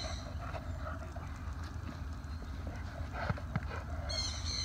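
Young Belgian Malinois gripping and tugging a bite sleeve: scuffling and scattered knocks over a steady low rumble, with a short high chirping call near the end.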